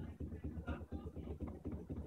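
Brastemp 15 kg top-load washing machine running mid-cycle, its basket turning the laundry with a steady low rumble.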